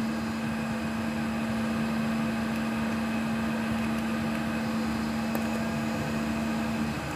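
Steady hum of running precision air-conditioning equipment, with a steady low humming tone that stops shortly before the end.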